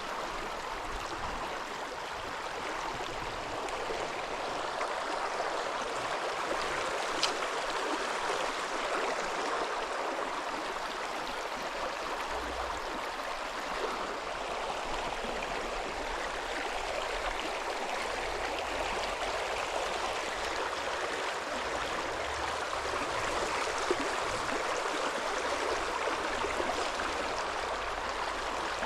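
Steady rush of a flowing stream, with a brief sharp click about seven seconds in.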